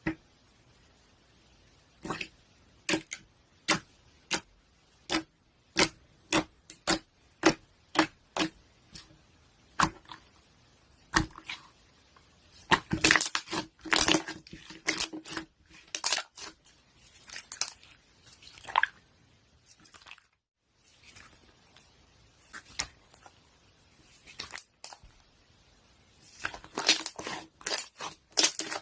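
Close handling noise: a series of sharp clicks, one every half second to second, turning to denser crackling and crinkling around the middle and again near the end.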